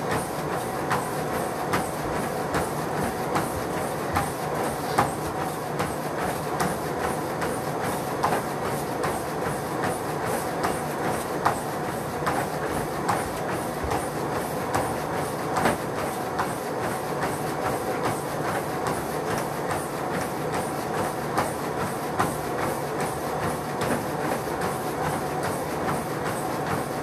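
Motorized treadmill running, with a steady motor and belt whine under a runner's quick, even footfalls striking the belt.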